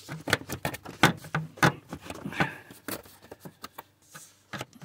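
Hands working a rubber air intake hose loose from its plastic connections on a diesel engine: irregular clicks, knocks and rubbing.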